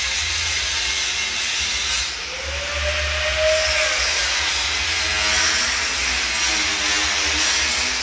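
Angle grinder working steel, a steady loud grinding hiss. About two seconds in it eases briefly, and its motor pitch rises as the disc lightens off the work, then it bites in again.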